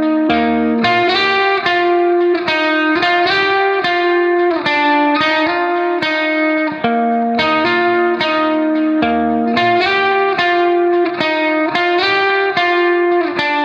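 Background music: plucked guitar notes picking out a steady, repeating melody.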